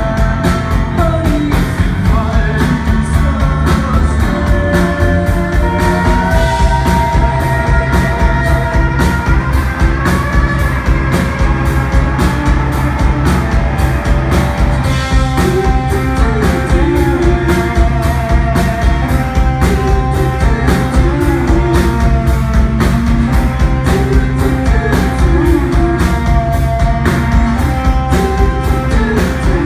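Live rock band playing loudly: acoustic and electric guitars over a drum kit keeping a steady beat.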